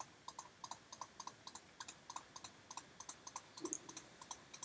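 Computer mouse button clicked repeatedly, each click a quick press-and-release, about three or four a second, as single dots are placed one after another in a drawing program.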